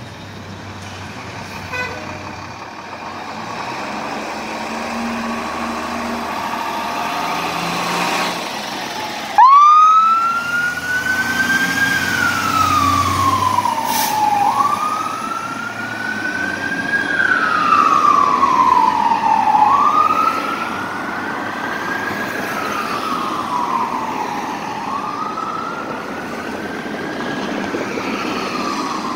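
Fire engine's motor running as it pulls out, then about nine seconds in its siren switches on with a sudden jump in loudness and wails, each slow rise and fall taking about five seconds.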